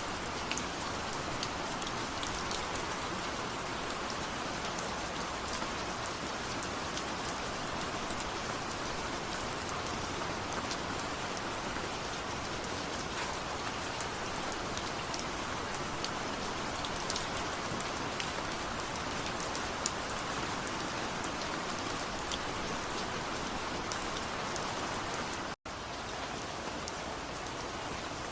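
Steady rain falling, with scattered sharper ticks of single drops; the sound cuts out for an instant near the end.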